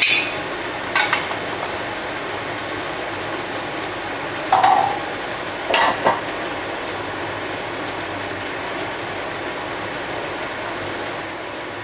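Beef and celery stir-fry sizzling steadily in a hot pan. A metal spatula clanks and scrapes against the pan a few times: around the first second, at about four and a half seconds with a brief metallic ring, and again near six seconds.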